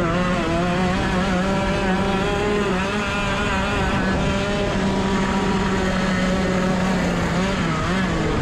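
Racing kart engine pulling hard out of a corner on a dirt track. Its pitch rises in the first second, then holds steady along the straight, with a brief dip and recovery near the end.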